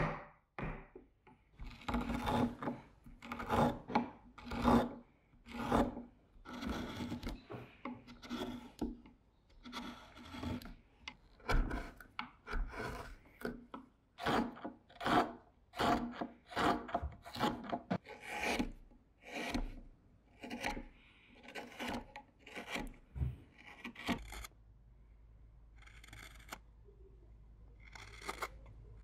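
Hand gouge scooping wood out of the hollow of a wooden measuring cup: repeated scraping cuts, roughly one or two a second. Near the end the cuts stop, leaving a faint steady background with a couple of light knife strokes on wood.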